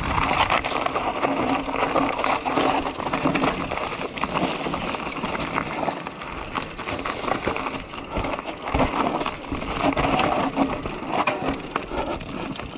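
Enduro mountain bike rolling down a rocky singletrack strewn with dry leaves and loose stones: tyres crunching over leaves and rocks, and the bike rattling, with many small knocks from the rough ground.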